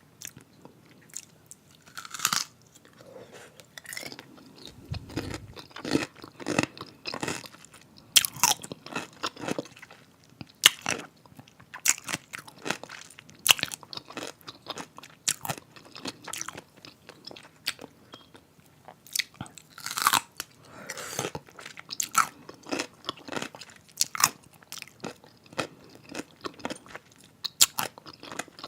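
Close-miked crunching and chewing of pickles: sharp, irregular crunches as bites are taken and chewed, with louder crunches every few seconds.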